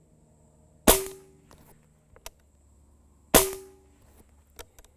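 Benjamin Maximus .177 pre-charged pneumatic air rifle firing twice, about two and a half seconds apart, each shot a sharp crack that dies away quickly. A few lighter clicks come between and after the shots.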